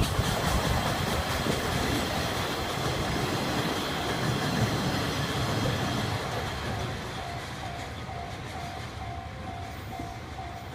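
Freight train of chiki flatcars loaded with rails, hauled by an EF66 electric locomotive, rumbling and clattering over a level crossing as it moves away, the noise fading steadily. In the second half a level-crossing bell becomes audible, dinging rapidly and evenly.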